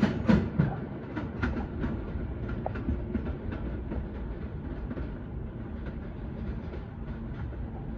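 New York City subway train on the L line running on the track: a steady low rumble with wheel clicks over rail joints about every half second. The clicks are sharpest at the start and grow fainter after that.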